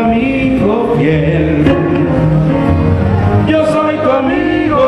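A man singing into a handheld microphone over a recorded backing track with a steady bass line.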